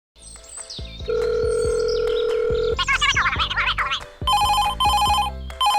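A telephone rings in two double rings in the second half, each ring a pair of short electronic trills. It is preceded by a long steady beep and a brief warbling sound effect, over background music.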